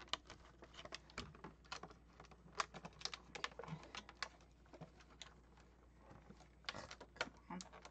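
Faint, irregular clicks and crackles of a clear plastic blister tray being handled while twist ties are untwisted from an action figure in it. The clicks thin out in the middle.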